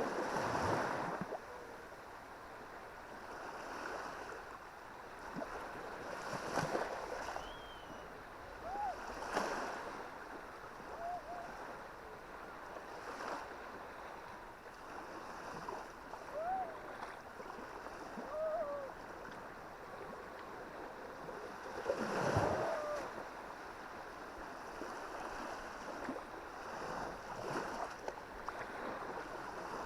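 Baltic Sea surf washing onto the beach. It is a steady rush of small waves that swells and breaks every few seconds, loudest about 22 seconds in.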